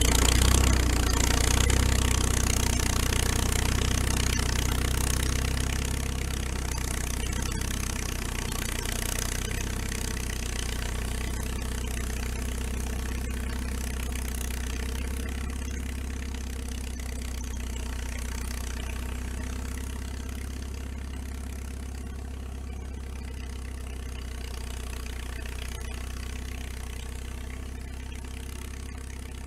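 Engine of a 1940 International Harvester T-9 crawler tractor running steadily as the crawler pulls a snow drag along a trail. It fades gradually as the machine moves away.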